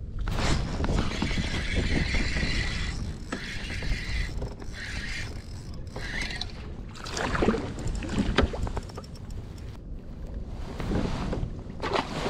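Wind buffeting the microphone and small waves slapping against a plastic kayak hull, with a few sharp knocks as gear is handled in the boat about halfway through and near the end.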